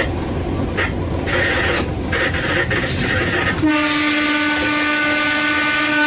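Rumble of a train passing close by, then about three and a half seconds in the train's horn starts a long, steady blast of several tones.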